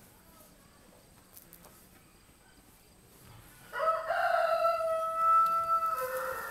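Rooster crowing once: a long call that starts near the middle, holds one steady pitch for about two seconds and drops lower at the end.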